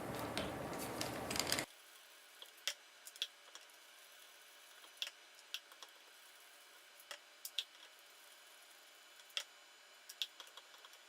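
Screwdriver working the small screws out of a propane fuel lock-off filter: scattered small metallic clicks and ticks at irregular intervals. A denser rustling noise fills the first second and a half and then cuts off sharply.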